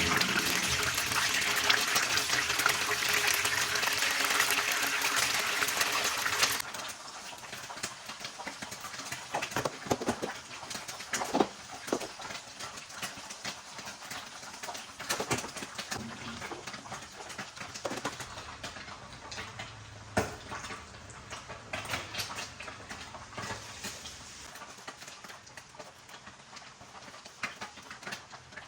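Water running hard from a kitchen tap for about six seconds, then shut off suddenly, followed by scattered clinks and knocks of dishes and utensils being handled.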